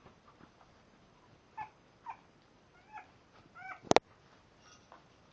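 French Bulldog puppies whimpering: several short, high squeaky cries. A sharp click just before the four-second mark is the loudest sound.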